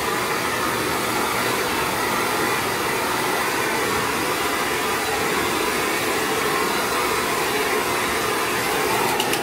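Handheld hair dryer blowing steadily on hair, a loud even rush of air over the motor's hum, cutting off at the very end.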